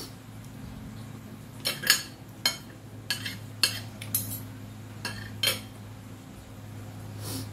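Spoon and fork clinking and scraping against a plate: a run of about ten sharp clinks over a few seconds, over a steady low hum.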